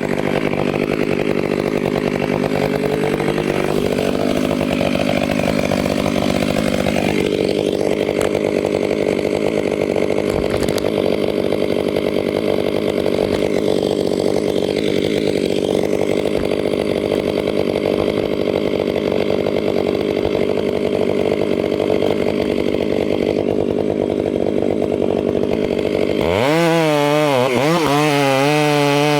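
Chainsaw running steadily at high speed, cutting into a spruce. About 26 seconds in, the engine pitch starts swinging up and down repeatedly.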